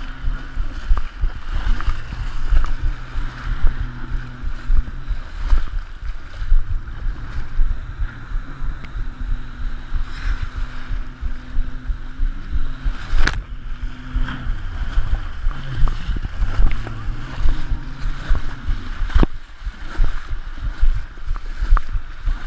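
Wind buffeting on the microphone over rushing water, with a RIB's outboard motor running, its pitch stepping up and down every few seconds. Two sharp knocks, about thirteen and nineteen seconds in.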